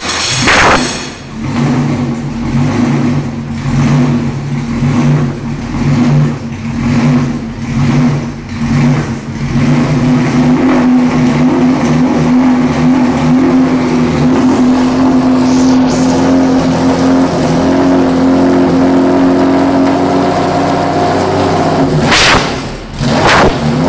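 Ford Supervan 3's Cosworth racing engine idling loudly through open exhausts. For the first ten seconds it rises and falls about once a second, then settles steady. Near the end come a couple of sudden loud bursts.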